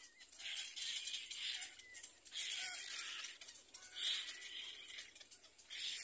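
Little black cormorant chicks begging at the nest: raspy, rattling, hiss-like calls in bursts of about a second, repeated four or five times with short gaps.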